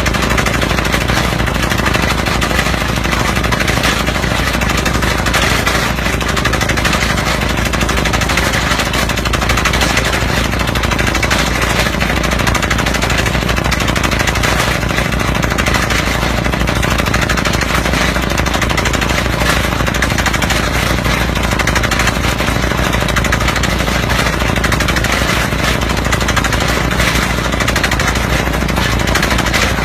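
Pneumatic air-hammer well-drilling rig running, its hammer pounding rapidly and without pause as it bores into hard rock.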